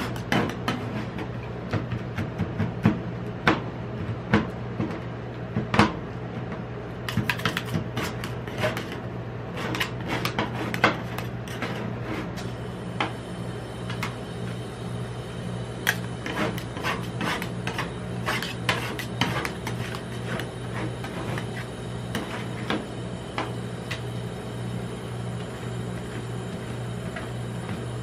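Two metal spatulas chopping and scraping chocolate ice cream mixture on the stainless-steel cold plate of a rolled-ice-cream pan: rapid sharp metallic taps and clacks, thinning out after about halfway into lighter scrapes as the mixture is spread flat. A steady low hum runs underneath.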